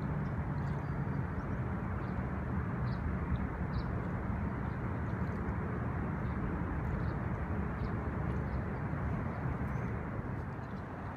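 Steady low rumbling outdoor background noise, with faint short high chirps now and then.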